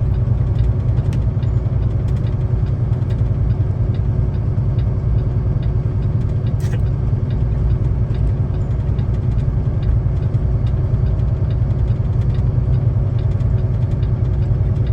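Semi-truck's diesel engine running steadily under the cab as the truck drives downhill, a constant low drone with a faint, rapid, even ticking over it.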